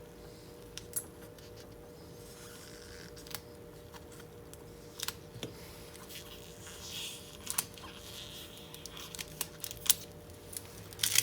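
Thin plastic polarizer film being peeled off an LCD panel by hand: scattered small clicks and short crinkling rasps, getting busier and louder near the end.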